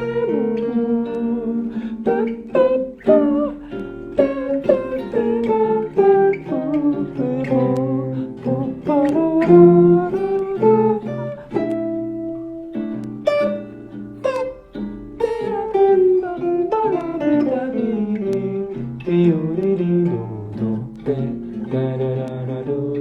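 Guitar improvising single-note jazz lines in a quick run of plucked notes over a backing track of sustained chords.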